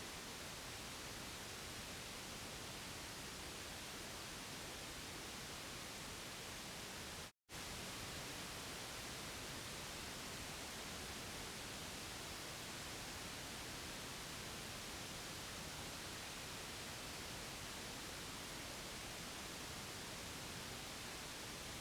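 Steady white noise played for a baby: an even, unbroken hiss with no tone or rhythm. It cuts out completely for a split second about seven seconds in, then resumes unchanged.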